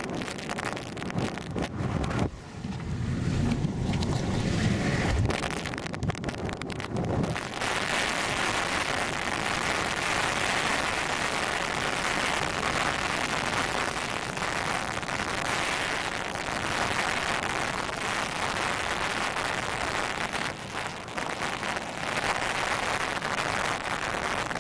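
Strong storm wind buffeting the microphone with low, uneven rumbles. About seven seconds in it gives way to a steady rushing hiss of wind that lasts to the end.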